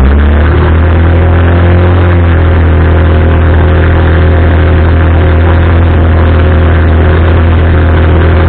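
Single-cylinder four-stroke air-cooled engine of an Arora Herkul 200cc ATV running loud at a steady speed.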